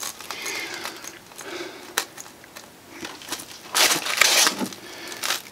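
Styrofoam pieces rubbing and crunching against each other as a hand presses and tucks them into place, with a sharp click about two seconds in and a louder scratchy rub a little before the end.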